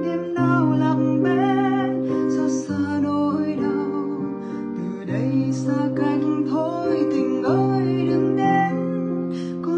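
A woman singing a slow, gliding vocal line over sustained acoustic guitar chords.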